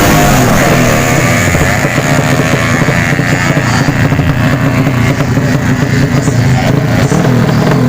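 Drag-racing 200 cc underbone motorcycle engines running loud. A steady low engine note carries on throughout, and a higher whine falls and fades within about the first second.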